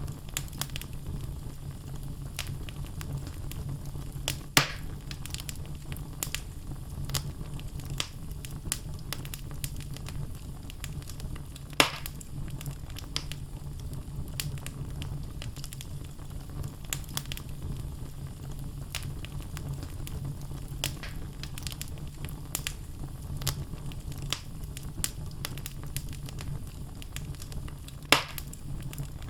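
Wood logs burning in a fireplace: a steady low rumble of flames under constant small crackles, with three louder sharp pops, one early, one in the middle and one near the end.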